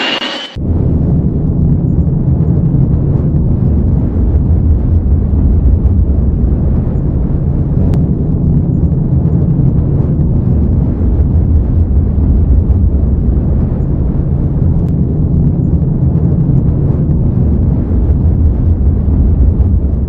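Loud, steady low rumble inside an airliner cabin during descent: engine and airflow noise heard through the fuselage.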